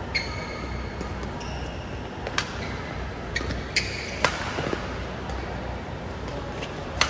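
Badminton rally: several sharp cracks of rackets striking the shuttlecock, the last near the end being the loudest, with short high squeaks of shoes on the court mat between them.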